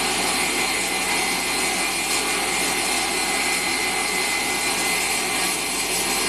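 Table saw running, a steady whine over a broad rushing noise.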